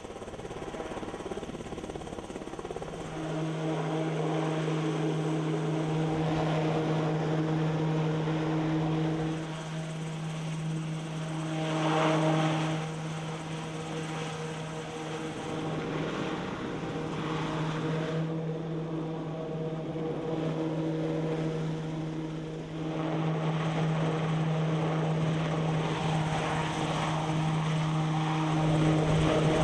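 Piasecki X-49A compound helicopter running and flying: a steady droning hum over a rushing noise from its rotor and ducted pusher propeller, swelling briefly about 12 seconds in.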